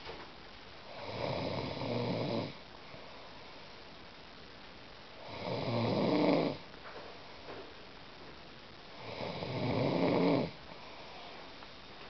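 A sleeping boy snoring: three long snores about four seconds apart, each swelling in loudness over a second or so.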